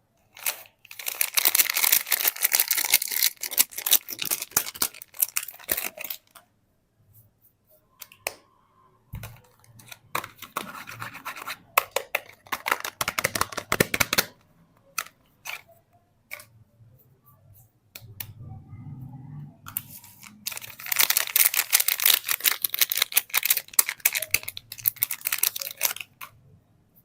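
Soap packaging being opened by hand: dense, rapid scratchy crinkling and tearing of the wrapper in three long spells, with light clicks and taps between them.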